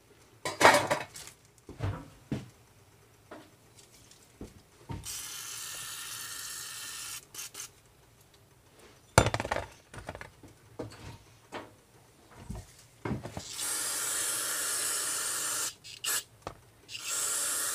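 Aerosol carburetor cleaner hissing out through a straw in several bursts of a couple of seconds each, between scattered knocks and clinks of carburetor parts being handled, the sharpest about nine seconds in.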